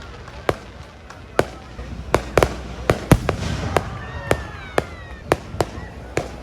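Aerial fireworks going off in a rapid, irregular series of sharp bangs, over a low rumble, with faint whistles gliding in pitch near the middle.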